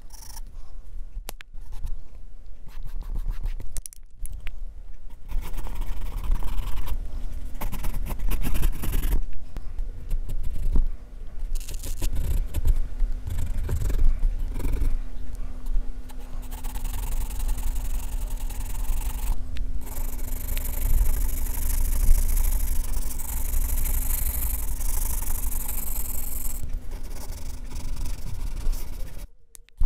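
Graphite pencil scratching on drawing paper, close up: stroke after stroke of shading, with a few brief breaks.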